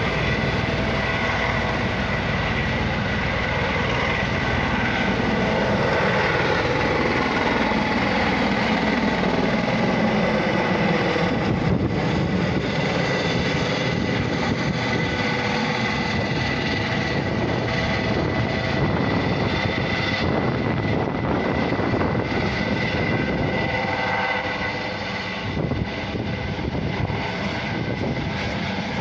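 Life Flight medical helicopter's turbine engine and rotor running as it lifts off and climbs away, with a steady high whine. A lower tone slides down over several seconds as the helicopter moves off.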